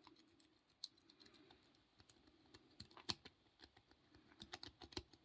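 Faint, scattered metallic clicks and ticks of a lock pick being rocked in the keyway of a small bell padlock, against its pins.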